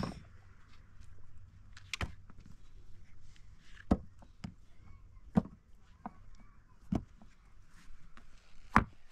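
A series of sharp knocks or thuds, six strikes at a fairly even pace about one and a half to two seconds apart, with fainter small clicks between them.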